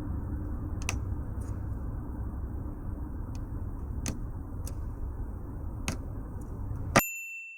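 Light metallic clicks of a lock pick working inside a door lock, a handful of irregular ticks over a steady low rumble. Near the end one louder click rings briefly with a high metallic tone, then the sound cuts out.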